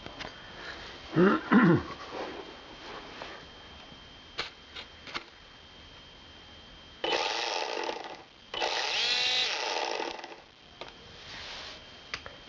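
Electric motor and propeller of a GuanLi P-51D Mustang RC foam plane being spun up on the bench: two short throttle blips about a second in, then two louder runs of a second or two each later on, the pitch rising as it speeds up and falling as it slows.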